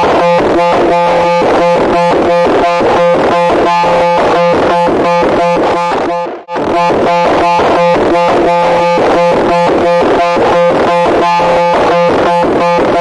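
Loud, harsh electronic tone pulsing rapidly at about five beats a second, with a steady low drone under it. It drops out briefly about six and a half seconds in, then starts again as a loop.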